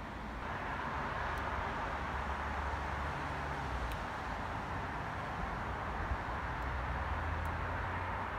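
Steady outdoor urban ambience: a constant hiss with a low hum beneath it, a little louder from about half a second in.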